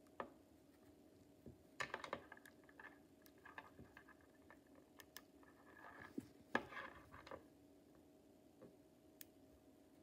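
Small metal magnetic balls clicking and snapping together as they are pulled apart and rejoined by hand: scattered sharp clicks, busiest about two seconds in and again around seven seconds.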